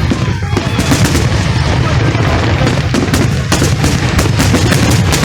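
Fireworks going off in rapid succession: many sharp bangs and crackles over a continuous low rumble.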